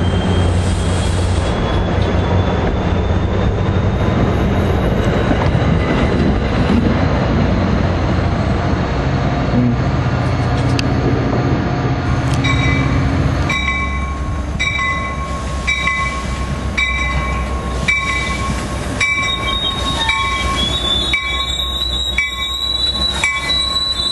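A New Jersey Transit push-pull passenger train's coaches rolling close past, with a steady low drone and a slowly rising high whine. About halfway through the sound changes to a second train passing, its wheels clicking over rail joints a little over once a second while a steady high wheel squeal runs underneath.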